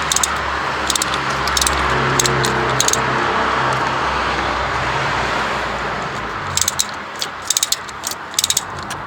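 A car's engine and tyre noise swells and fades over the first six seconds. Then a ratchet wrench clicks in short quick runs as the coolant temperature sensor is wound loose.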